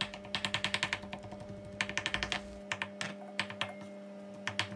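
Kitchen knife rapidly chopping and mashing soft roasted eggplant on a chopping board. Quick runs of tapping strokes, several a second, come in short bursts with brief pauses between them.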